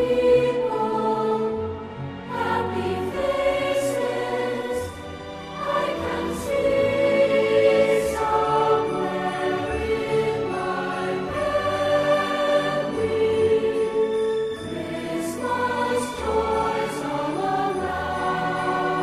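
Music: a choir singing slow, held chords over an orchestral accompaniment.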